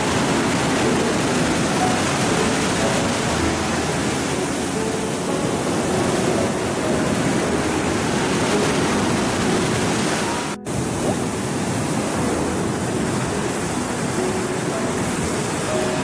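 Steady rushing of sea surf and wind off a choppy sea. It briefly cuts out about ten and a half seconds in.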